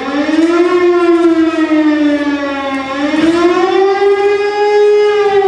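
Wailing siren of the air-raid kind, its pitch slowly rising and falling twice.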